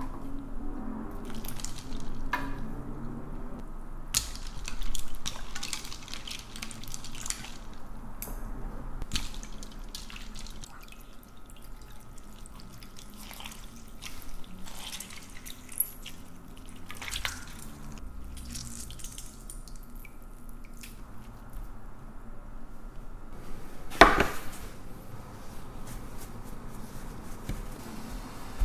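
Blanched bok choy being rinsed and squeezed by hand over a steel bowl of ice water: water drips and splashes, with scattered small clicks and one sharp knock about three-quarters of the way through.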